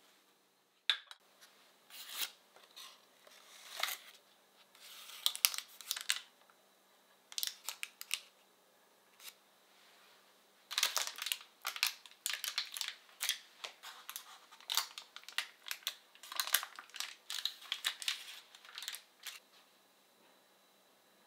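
Parchment baking paper crinkling and tearing in irregular bursts as it is peeled off a baked cheesecake, with a sharp click about a second in.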